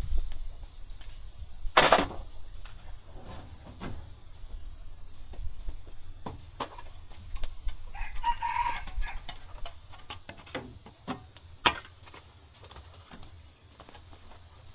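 Chickens, with a rooster crowing once about eight seconds in, among scattered clicks and knocks. A sharp loud noise comes about two seconds in and another near the end.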